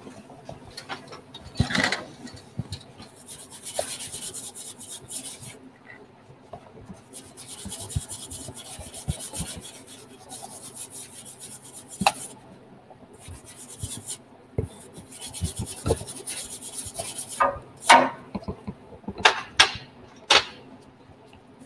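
Scrubbing and scraping by hand on the metal of an aircraft engine starter cart, in runs of quick strokes with short pauses. Near the end come a few sharp knocks and clanks.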